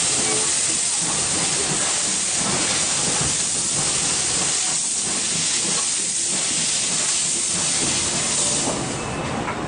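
Japanese 8620-class steam locomotive No. 8630 under way at low speed, heard from the coach just behind its tender: a steady hiss of steam that eases a little near the end.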